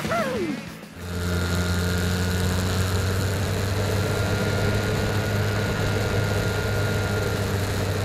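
A short falling glide in the first second, then from about a second in the steady drone of an RC foam airplane's electric motor and propeller in flight, picked up by the onboard cockpit camera.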